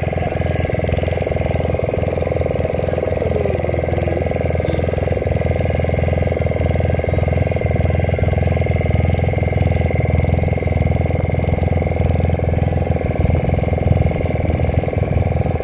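Fishing boat's engine running loud and steady at an even speed.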